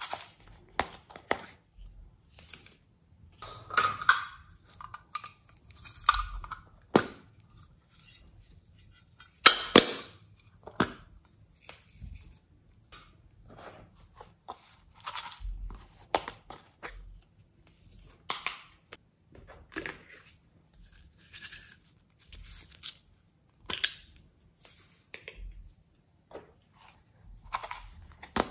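Small hard-plastic slime containers being handled and opened: irregular sharp clicks and snaps of plastic lids, with a few longer noisy bursts, the loudest about ten seconds in.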